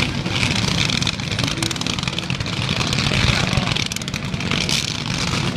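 Fireworks going off without a break: dense crackling, many small pops close together over a steady rushing hiss and low rumble.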